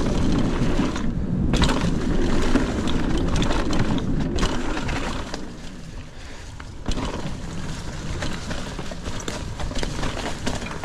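Mountain bike rolling and rattling over a dirt trail, with wind noise on the microphone, louder for the first five seconds, then quieter, with a single thump about seven seconds in.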